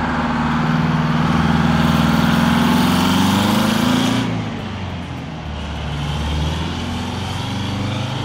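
White Freightliner cabover semi tractor pulling away, its diesel engine note climbing steadily in pitch, then falling back about four seconds in and growing fainter as the truck moves off.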